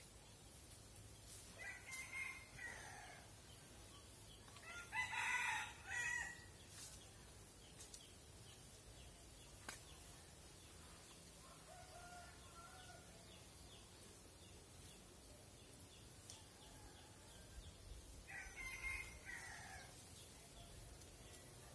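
Rooster crowing several times, faintly. The loudest crow comes about five seconds in, and another comes near the end.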